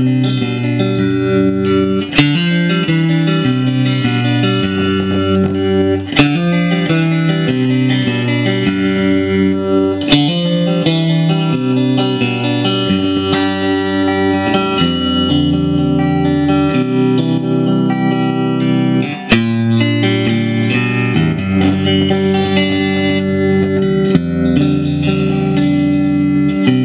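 1965 Fender Stratocaster electric guitar played through an amplifier: chords and single notes ringing out, changing every couple of seconds, with a sharp strum every few seconds.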